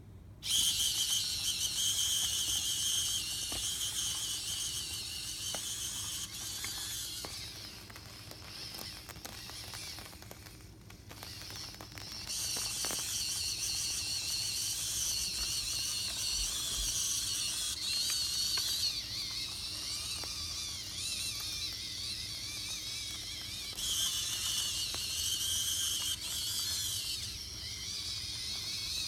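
Small electric motors whining at a high pitch, the whine wavering as their speed changes, with a brief drop about ten seconds in.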